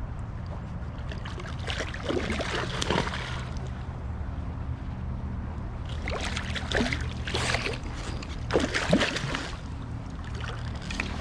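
Hooked landlocked Atlantic salmon splashing and thrashing at the surface of a shallow stream in three bursts, about two, six and nine seconds in, over a steady low rumble.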